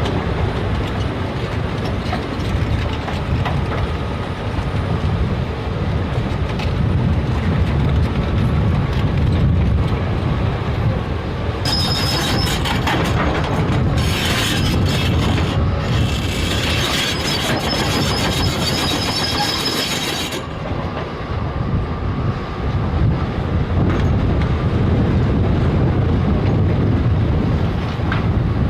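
Heavy tracked earthmoving machine working: a steady diesel rumble with clanking steel tracks. A high metallic squeal joins in between about 12 and 20 seconds.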